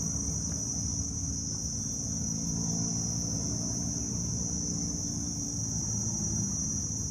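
Steady, shrill drone of forest insects in one unbroken high band. Underneath runs a low hum that fades out about five and a half seconds in.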